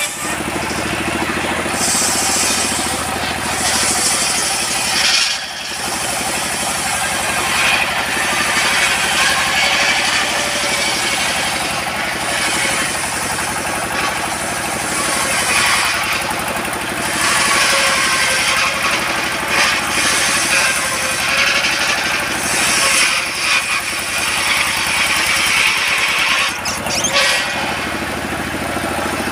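Old diesel engine running steadily and driving a large circular saw table. The spinning blade rips through teak at the start, then runs on between cuts, its high-pitched cutting noise swelling and fading over the engine.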